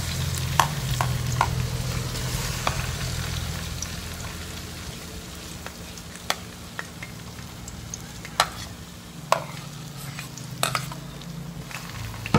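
Sliced okra frying in hot oil in an aluminium wok: a steady sizzle, loudest in the first few seconds after the okra goes in and then settling lower, with scattered sharp ticks every second or two.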